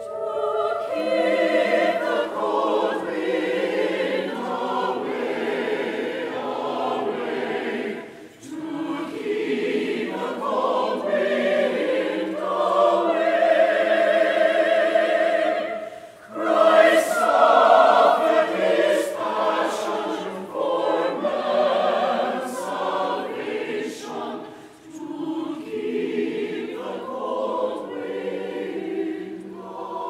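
Church choir singing a hymn together, in phrases of about eight seconds with brief pauses between them.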